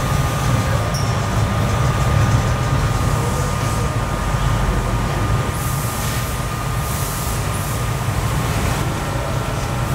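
Factory machinery in an enamelling works running steadily: a low rumble with a thin, steady whine on top. A few short bursts of hiss come in during the second half.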